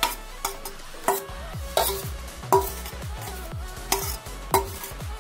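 Metal spoon scraping and clinking against a stainless steel bowl, over background electronic music with a steady beat of about one hit every 0.7 seconds.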